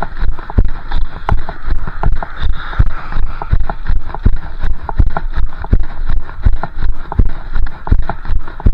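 A runner's footfalls on a wet, slushy road shoulder, picked up by a chest-mounted camera: a regular beat of about three strides a second, with a steady hiss underneath.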